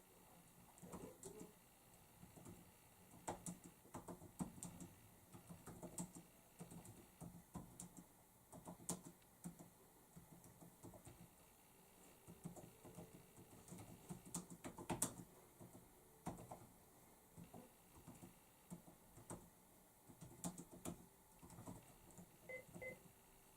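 Faint, fast, irregular clicking of keys as someone types on a computer keyboard.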